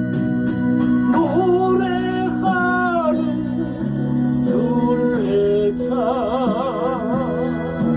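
Gospel song accompaniment: sustained keyboard chords that change a few times, under a melody line that holds notes with a wide vibrato near the end.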